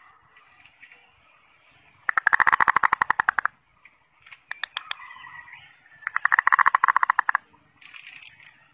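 Zebra dove (perkutut) giving its rattling 'kerot' call: two rapid rattles of about a second and a half each, a few seconds apart. Bird keepers use this call to set other zebra doves singing. Faint background chirps and a thin steady high tone run underneath.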